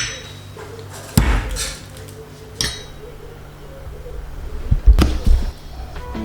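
A few separate knocks and thuds from kitchen items being handled, with a clink, over a low steady hum; the loudest knocks come close together about five seconds in.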